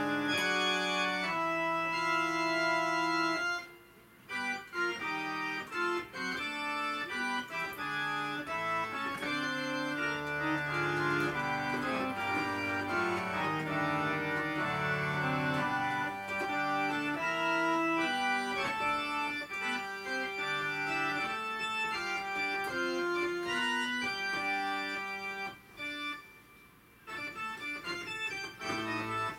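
Two-manual digital organ playing a calm improvisation in sustained, held chords that change every second or two. The sound breaks off briefly about four seconds in and again a few seconds before the end.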